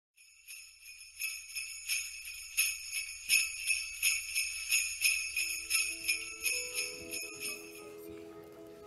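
Jingle bells shaken in a steady rhythm, about three shakes a second, dying away near the end as sustained lower musical notes come in.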